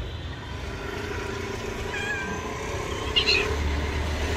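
Stray cats meowing for food: one short meow about two seconds in, then a louder, harsher meow about a second later.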